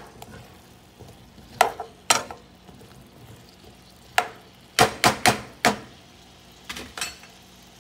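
A spatula stirring sliced cucumbers in a non-stick frying pan. It knocks sharply against the pan, with single knocks spread out and a quick run of four about five seconds in.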